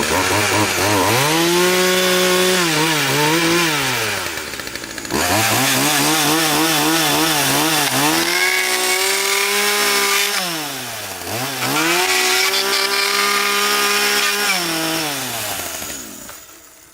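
Chainsaw revved hard three times, dropping back toward idle between runs, as it cuts into a padlock's packaging; it winds down and stops near the end.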